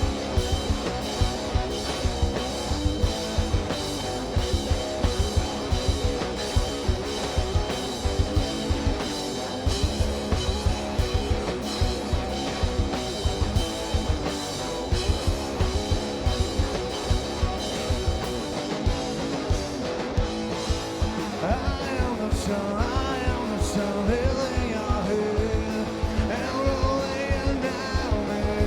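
Live rock band playing: guitars over a steady drum beat. A wavering melodic line comes in about two-thirds of the way through.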